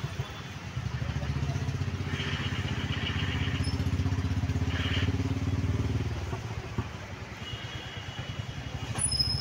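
Jammed street traffic: motorcycle and auto-rickshaw engines running close by, with a few short horn toots.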